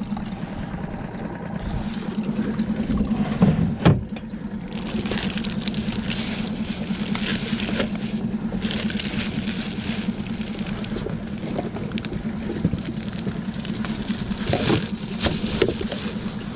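Small outboard motor on a solo skiff running steadily, with a sharp knock about four seconds in and the rustling of a plastic bag being handled over the engine's hum.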